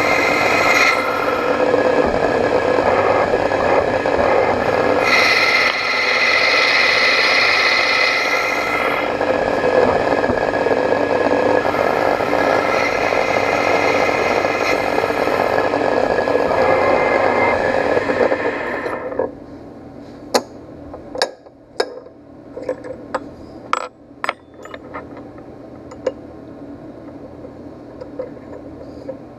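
ProtoTRAK lathe running with metal scraping on a spinning brass nozzle body, in several louder stretches over a steady whine. About two-thirds through the spindle stops abruptly, and a run of sharp metallic clicks and knocks follows as the chuck and part are handled.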